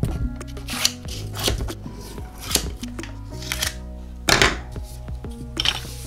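Yellow masking tape being pulled, cut with scissors and pressed down: short rustles about once a second, over steady background music.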